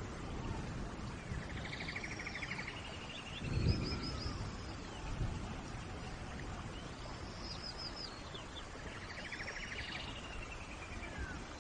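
Steady rain with birds calling over it, repeating a fast trill and a run of short curved whistled notes several times. A low rumble about three and a half seconds in.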